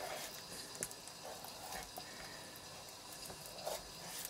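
Faint, scattered small ticks and soft scrapes of a small knife cutting around the tendons at the end of a raw chicken drumstick.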